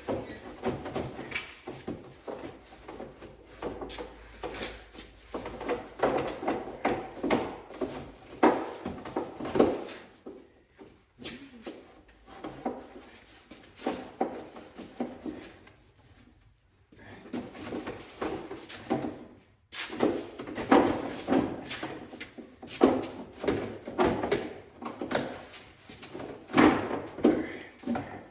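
Irregular clanks, clicks and rattles of hand tools and metal parts being handled while the underside of a car is bolted back together, with short pauses between bursts of work.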